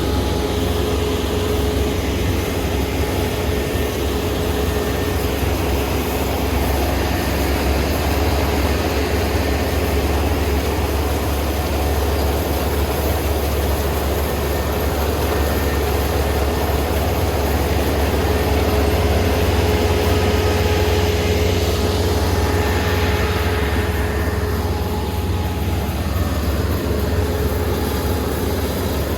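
Kubota ER470 combine harvester running steadily: a deep engine hum with a steady whine above it. Its higher noise sweeps down in pitch a little over twenty seconds in.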